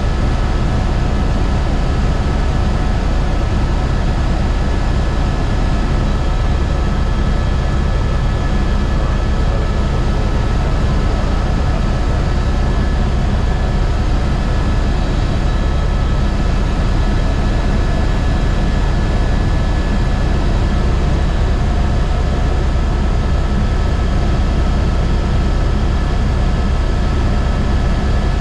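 Airbus H125 helicopter in flight: the steady, even beat of the main rotor under the thin whine of its single turboshaft engine, with no change in pitch or level.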